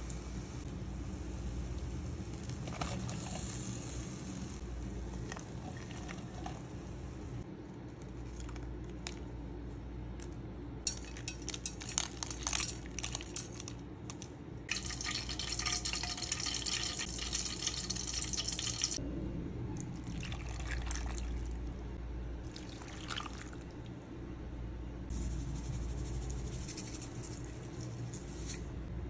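Whole black peppercorns dropped by hand into a stainless steel pot, a quick run of small clicks, over a steady low hum. A few seconds of steady hissing noise follow.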